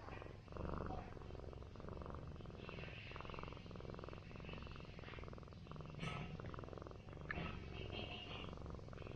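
Orange tabby cat purring steadily while being massaged.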